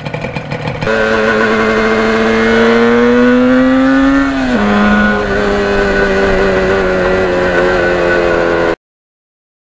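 Yamaha RD400's two-stroke twin engine, idling briefly, then under way with the revs climbing steadily, dropping at a gear change about halfway through, and running at a steady cruise before the sound cuts off suddenly near the end.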